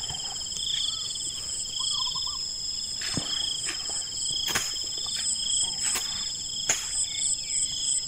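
Insects chirping in a rice paddy: several steady high-pitched trills, with a pulsed chirp repeating about once a second. A few sharp clicks fall in the middle and later part.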